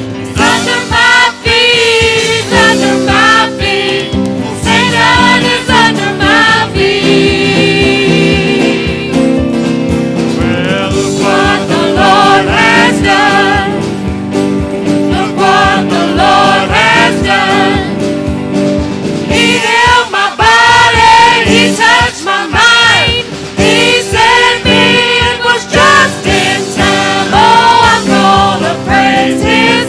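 Gospel-style singing with instrumental accompaniment: sung melody lines over held chords, continuing without a break.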